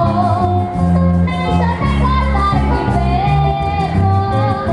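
A boy singing a Venezuelan llanero pasaje through a PA system, holding long notes over a string-band accompaniment with a steady bass line.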